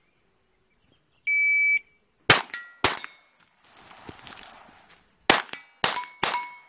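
Shot-timer start beep, then five .22 rimfire pistol shots at steel targets: two quick shots, a pause of about two and a half seconds, then three more, the plates ringing after hits. The last shot stops the timer at about five seconds.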